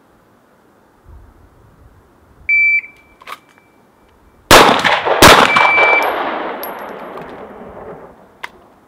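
Handgun firing two shots about three-quarters of a second apart, one on each of two targets, the report ringing on and fading over about three seconds. A short electronic start beep sounds about two seconds before the first shot.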